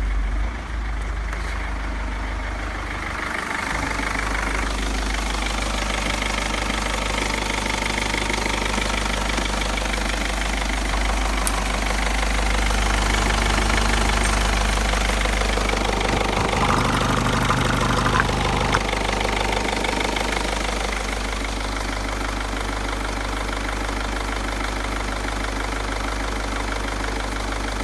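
Mercedes-Benz OM611 2.2 CDI four-cylinder diesel engine idling steadily.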